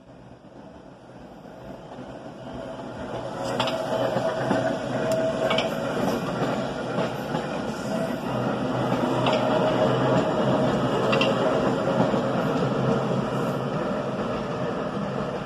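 A New York City subway train approaching and running past on the Brighton Line. Its rumble grows louder over the first few seconds, then holds steady with a scatter of sharp clicks.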